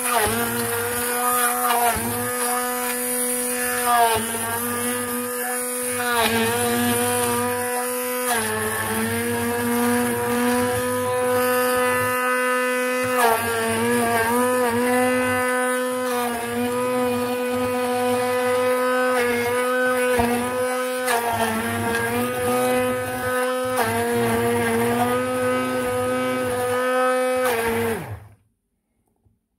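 Hand (stick) blender's motor running with a steady whine as it purées fresh strawberries in a glass jug, its pitch sagging briefly every few seconds. It is switched off near the end and stops suddenly.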